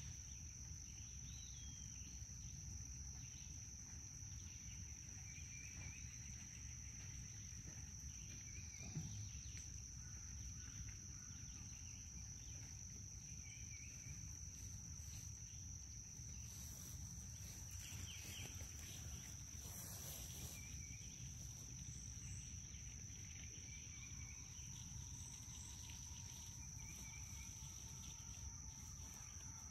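Steady, faint, high-pitched drone of summer insects, with a short chirp repeating every few seconds over a low background rumble.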